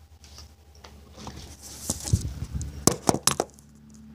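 Rustling with several sharp knocks and clicks about two to three and a half seconds in, over a faint low hum.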